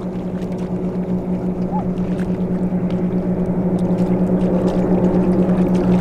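Boat motor running steadily with a low, even hum, slowly growing louder.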